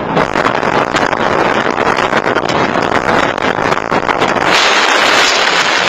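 Loud, steady rushing noise of a moving vehicle and wind on a dashcam microphone inside the vehicle. It grows harsher about four and a half seconds in, as the vehicle leaves the road.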